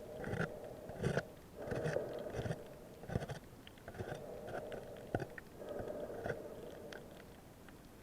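Irregular muffled clicks, crunches and scrapes, several a second, over a steady dull hum.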